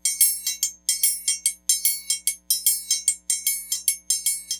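A metal motorcycle disc played like a triangle, struck in a fast, rhythmic pattern of about five strikes a second, each ringing high and bright.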